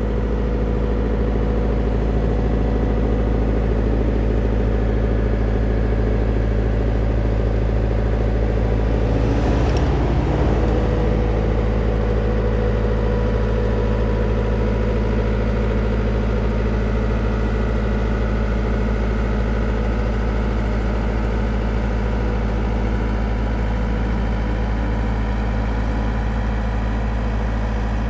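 Heavy road-construction machine's engine running at a steady idle, with a brief swell of noise about ten seconds in.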